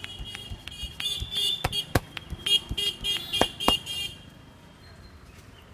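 Sharp, irregular slaps of hands on a head during a head massage, loudest about two seconds in and again near three and a half seconds. A high-pitched beeping tone pulses rapidly through the first four seconds and then stops.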